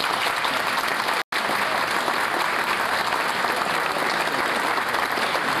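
Audience applauding steadily, with a split-second break a little over a second in.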